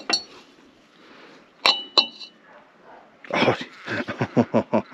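Two sharp metallic clinks with a short ring, about a second and a half apart, as rusty tractor engine parts and spanners knock together. In the last second and a half, a louder quick run of about ten short sounds of unclear source.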